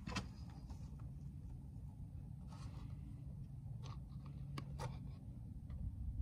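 Plastic oil funnel being handled in an ATV's oil fill neck: a few light clicks and scrapes over a steady low rumble.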